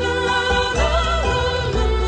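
Background music: a melodic track over a strong, steady bass, with a lead line gliding up and down about a second in.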